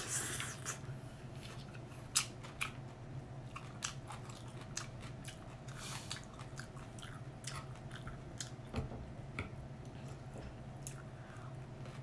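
A person eating stir-fried noodles with a fork: chewing, with scattered sharp clicks and smacks, over a steady low hum.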